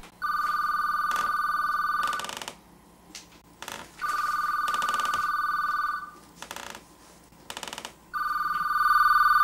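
Telephone ringing: three rings of about two seconds each, a fast two-tone electronic trill, repeating every four seconds.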